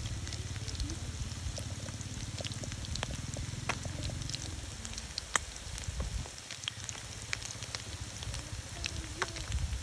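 Batter-coated small fish deep-frying in hot oil: steady sizzling with many sharp crackles and pops, over a low steady rumble.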